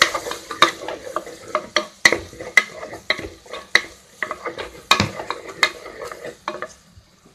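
A spoon stirring and scraping thick masala in an aluminium pressure cooker, with irregular knocks of the spoon against the pot over a light sizzle of frying. The stirring dies away near the end.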